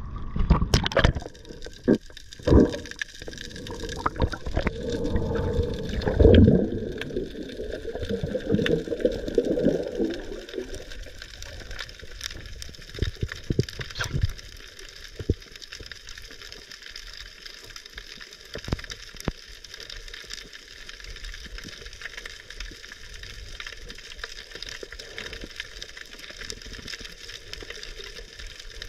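Seawater sloshing and gurgling around the camera as it goes under during a dive, loud and uneven for about the first ten seconds. Then a faint, steady underwater hiss with scattered sharp clicks.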